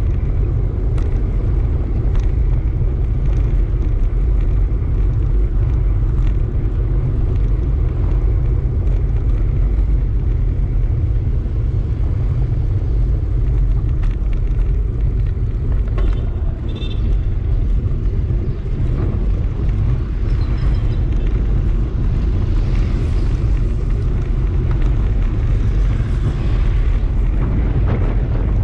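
Wind buffeting the microphone of a camera on a moving bike, mixed with tyre rumble on the road surface: a steady, loud low rumble.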